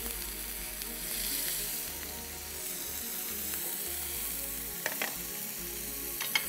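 Chicken patty sizzling steadily in oil on a very hot grill pan, with a couple of light clicks about five seconds in and near the end.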